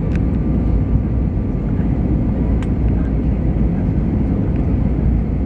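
Airbus A320 cabin noise in flight during the descent: a steady low rumble of the engines and rushing air, heard from inside the cabin.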